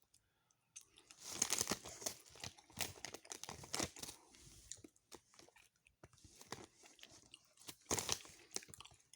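A person chewing cherry Twizzlers licorice candy close to the microphone, with wet clicky mouth sounds in bursts about a second in and again near the end.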